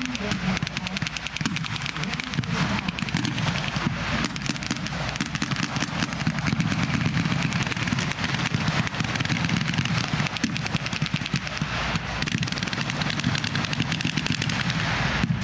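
Jeep-mounted machine guns firing blanks in rapid, continuous bursts, the shots packed so closely that they run together almost without pause.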